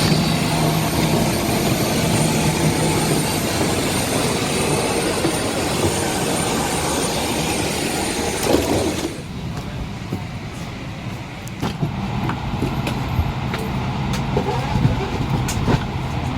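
Loud, steady aircraft noise, a rush with a high whine like an auxiliary power unit or jet engine. It cuts off abruptly about nine seconds in, giving way to a quieter steady hum with scattered clicks and knocks.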